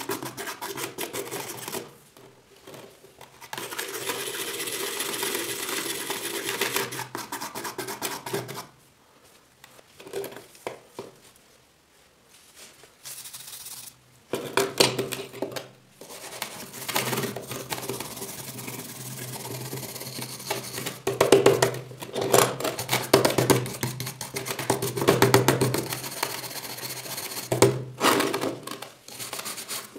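Hand wire brush scrubbing rust off a rusty antique areca nut cutter in runs of quick back-and-forth strokes, with short pauses and a few light knocks as the piece is handled.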